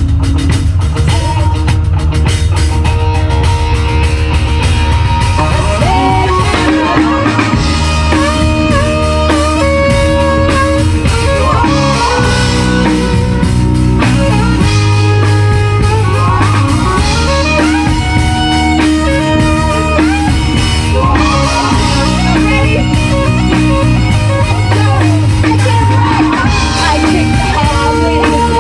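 Rock music from a band: a melodic guitar line over bass and drum kit.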